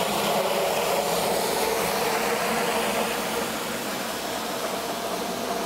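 Tap water rushing from a hose into a plastic wash bucket as it fills: a steady splashing hiss, a little quieter near the end.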